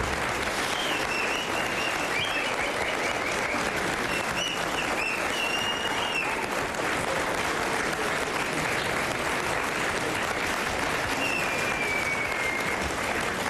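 Studio audience applauding, a dense steady clapping that keeps going without a break.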